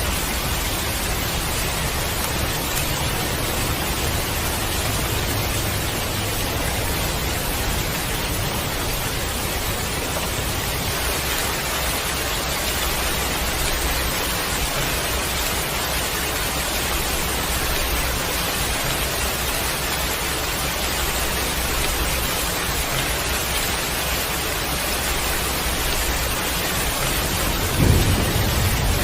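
Heavy rain pouring steadily with a low rumble underneath, and one short, sudden boom of thunder near the end.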